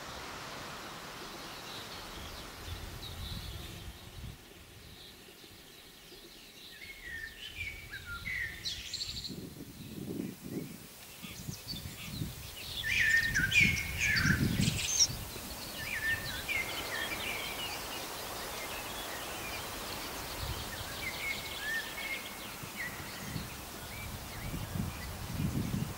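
Several wild songbirds singing and chirping, busiest around the middle, over intermittent low rumbles.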